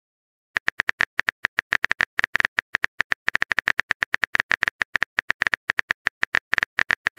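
Keyboard tap sound effect of a texting app as a message is typed out: a rapid run of short, same-pitched clicks, roughly eight to ten a second, starting about half a second in.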